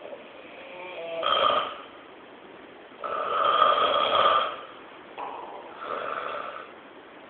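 A person snoring: three snores in a row, the middle one the longest at about a second and a half, with quieter breathing between them.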